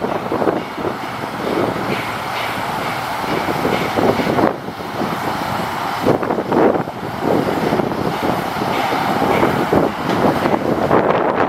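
Crane truck's Caterpillar 3126 diesel engine running steadily to drive the hydraulic articulating crane as its boom folds down, with gusty wind noise on the microphone.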